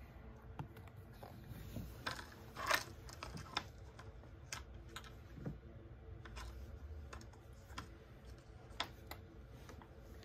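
Faint, irregular light clicks and taps of small hard objects being handled, about a dozen scattered unevenly, over a faint steady low hum.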